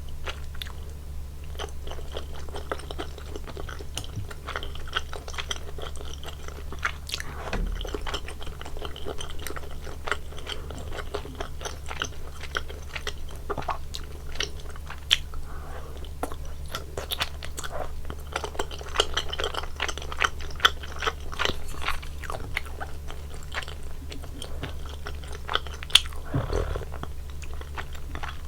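Close-miked eating sounds of spicy soupy tteokbokki: a person biting and chewing the chewy rice cakes, with many wet mouth clicks and smacks throughout. A steady low hum runs underneath.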